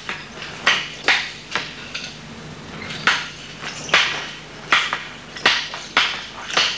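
Nunchaku being swung and striking: about a dozen sharp, hard knocks and clacks at an uneven pace, roughly two a second.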